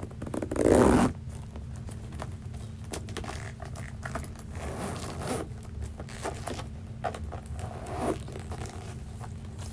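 Zipper on a Coach backpack being pulled, one quick loud zip about half a second in. It is followed by clicks and rustling as the bag is handled, and another zip near the end as the main compartment is opened.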